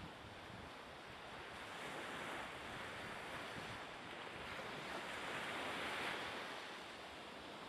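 Choppy sea water washing and splashing, with wind; the wash swells twice, about two seconds in and again around six seconds in.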